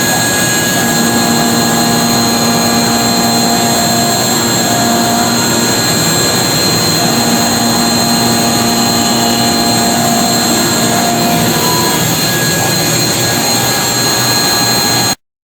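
Romi Discovery 1250 CNC machining center running: a loud steady machine noise with a constant high whine, and lower motor hums that come and go every few seconds as the machine works. The sound cuts off abruptly near the end.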